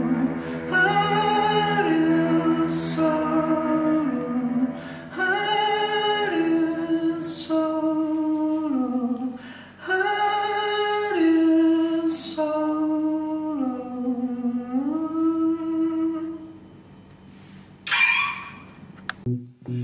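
A voice sings a wordless melody of long held notes that slide between pitches, over a steadily ringing acoustic guitar. The music fades out near the end.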